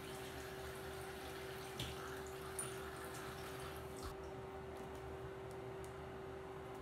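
Water running from a tap into a plastic bottle that is being filled to a marked line, with a few light knocks of the bottle; the running water stops about four seconds in. A steady hum continues underneath.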